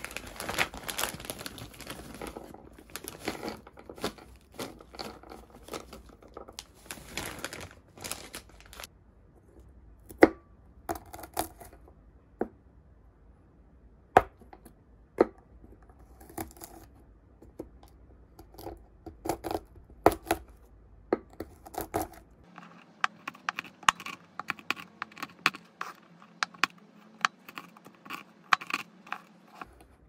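White ceramic kitchen knife cutting mixed nuts (cashews and almonds) on a round wooden cutting board: scattered single cracks and taps, then from about three-quarters of the way through, quick chopping with many crisp knocks. The first several seconds hold a dense rustling, crinkling noise.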